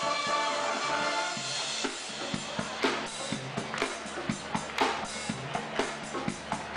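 Background music: held brass-and-orchestra chords fade out about two seconds in, and a drum-kit beat with bass drum and snare hits takes over.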